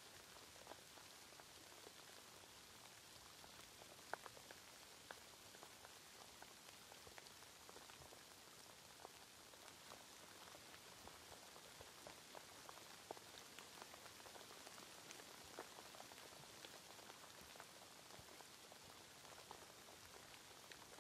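Faint, steady rain: an even hiss with many single drops ticking through it, one sharper drop about four seconds in.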